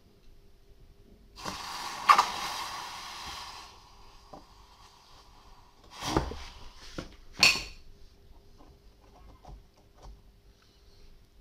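Red-hot tip of a steel rebar tire lever quenched in water, sizzling for about two seconds. About four seconds later come two sharp knocks, a second and a half apart.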